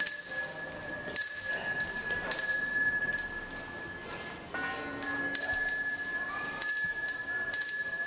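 A small high-pitched metal bell rung several times at uneven intervals, each ring fading over about a second, with a steady lower ringing tone beneath.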